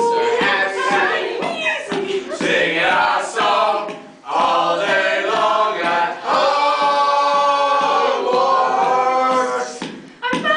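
Several voices singing unaccompanied, chanting in short rhythmic sung syllables, then holding one long sustained chord together for several seconds near the end.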